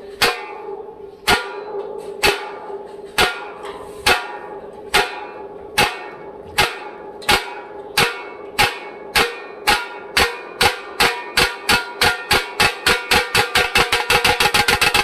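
Nashik dhol-tasha drum strikes speeding up steadily, from about one beat a second to a fast roll near the end, over a steady ringing tone.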